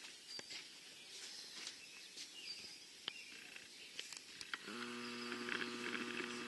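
Faint outdoor ambience with a few short, high chirps and light clicks. About two-thirds of the way in, a steady low mechanical hum starts and holds an even pitch.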